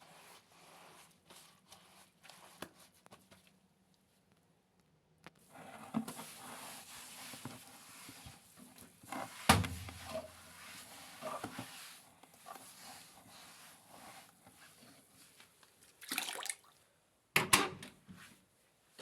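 Water running out of a fully automatic washing machine that won't drain, starting about five seconds in and lasting about ten seconds, with a sharp knock midway and two short clattering bursts near the end.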